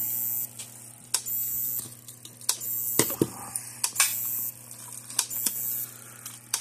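Gallagher M800 electric fence energizer pulsing on a replacement board: a sharp click about every 1.3 seconds, several followed by a brief hiss, over a steady low mains hum. The regular pulses show the unit firing properly with the new board.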